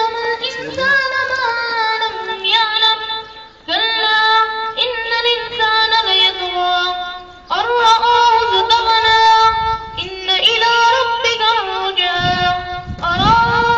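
A high-pitched voice singing long, held melodic notes with vibrato, in phrases broken by short pauses about four and seven and a half seconds in.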